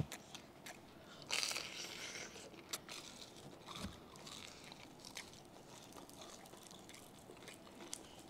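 Close-up crunching and chewing of crispy lechon kawali (deep-fried pork belly) skin as it is bitten into, a run of sharp crackly crunches with a denser burst about a second and a half in.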